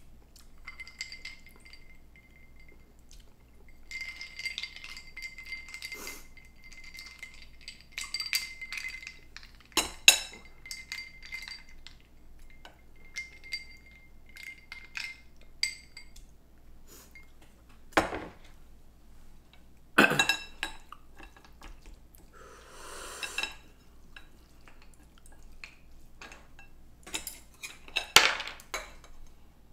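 Cutlery clinking and scraping against a dish at irregular moments during a noodle meal, with the sharpest clinks about 10, 18, 20 and 28 seconds in. A faint steady high tone runs through the first half.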